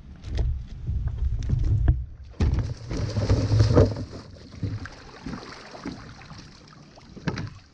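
A person falling out of a kayak into shallow water: a low rumble, then a sudden big splash about two and a half seconds in, followed by sloshing water and a few knocks against the kayak.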